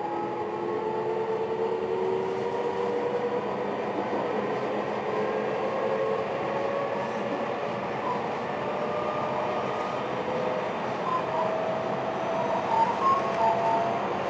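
Running sound inside a JR West 223 series 1000-subseries electric motor car: steady wheel and rail noise under the traction motors' whine, which rises slowly in pitch as the train gathers speed. A few short, louder clatters come near the end.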